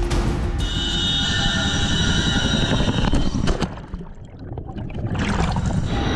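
Loud CH-47 Chinook helicopter noise and rushing wind at the open rear ramp, with a steady high whine over it for the first few seconds. About three and a half seconds in, the sound turns dull and muffled, as from under water, for about a second and a half. Then the loud wind and rotor noise returns.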